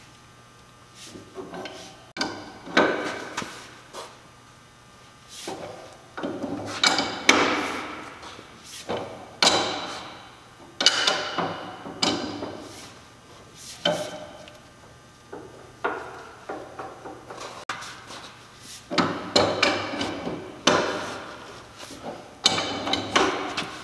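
Irregular metallic clanks and rattles, about a dozen over the stretch, as a large wrench is worked on the nut of a Jaguar IRS output shaft clamped in a bench vise. The nut is being tightened to crush the crush collar down to zero end float.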